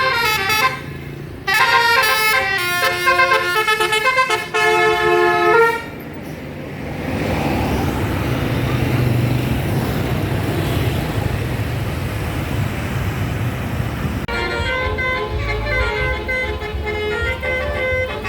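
Basuri 'telolet' bus horn playing a quick multi-note melody that steps from tone to tone, breaking off briefly about a second in. After about six seconds it gives way to engine and road noise, and a run of musical tones starts again near the end.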